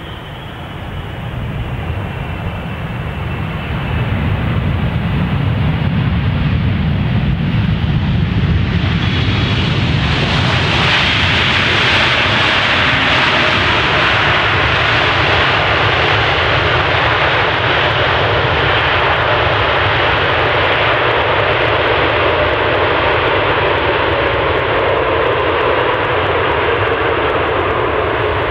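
GE90 jet engines of a Boeing 777-300ER landing and rolling out: a roar that builds over the first few seconds, turns brighter and louder about ten seconds in, then holds steady, with a whine slowly dropping in pitch near the end.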